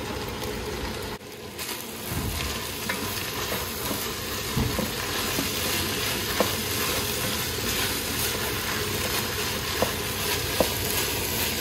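Beef mince with onion and freshly added chopped tomatoes sizzling in a pot while a wooden spoon stirs it, with a few light clicks of the spoon against the pot.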